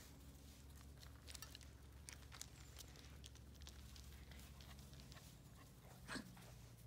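Near silence: a steady low hum with faint scattered ticks and patter from Brittany puppies playing on grass, and one brief, sharper sound from the dogs about six seconds in.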